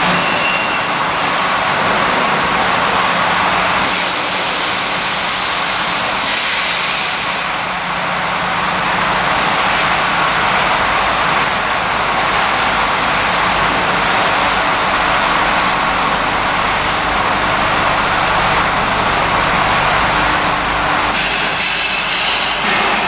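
KT-313F curtain wall end milling machine running, a loud, steady machine noise, with a few short clicks near the end.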